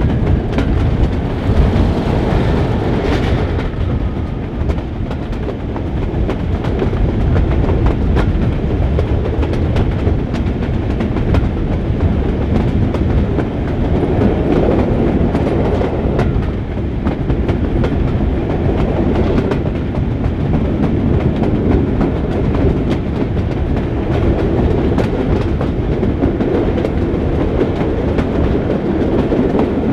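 Diesel-hauled passenger train, behind a Class 31 locomotive, running along the line: a steady rumble with wheels clicking over rail joints.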